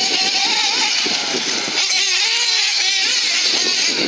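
Two nitro-powered off-road RC race cars running around a dirt track, their small high-revving engines rising and falling in pitch as they go on and off the throttle.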